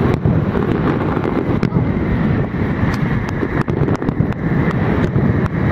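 Fireworks display: many sharp cracks and pops from bursting shells over a steady low rumble.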